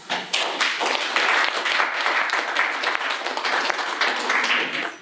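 A small seated audience applauding, many hands clapping steadily together.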